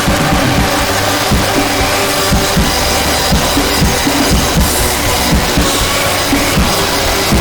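Loud, dense music with a busy drum kit and sustained tones underneath.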